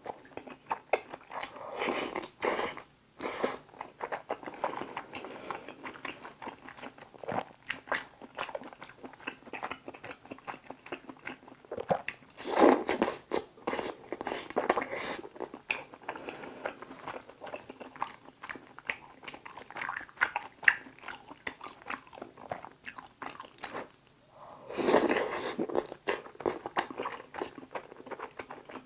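Close-miked eating of tteokbokki topped with pizza: chewing, biting and wet mouth clicks in quick succession. A few louder, second-long mouth sounds come about 2, 12 and 25 seconds in.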